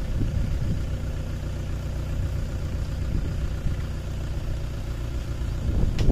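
Mahindra 575 DI tractor's four-cylinder diesel engine running steadily, driving the hydraulic tipper as the trolley lifts to dump its soil. A brief sharp click near the end.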